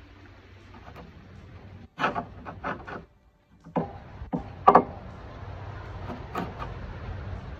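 Sharp metal-on-metal knocks as a cut-off steel drift pin is driven out of a boat-trailer roller bracket with a long steel rod, so the rubber keel roller can be taken off. About four quick knocks come around two seconds in, and a second group of three around four to five seconds in, the last of these the loudest.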